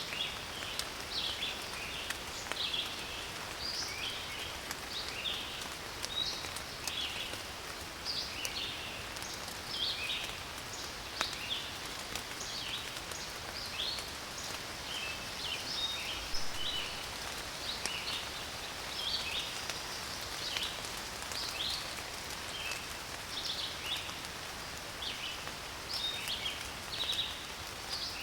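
Steady rain falling, an even hiss, with frequent short high chirps throughout.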